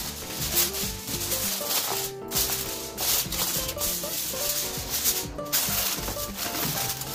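Aluminium foil crinkling and rustling as it is pressed and crimped down over the rim of a disposable aluminium baking pan, with music playing underneath.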